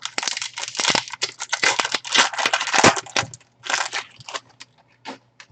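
Plastic-foil trading card pack wrapper being torn open and crinkled, a dense crackle for about three seconds followed by a few shorter crinkles.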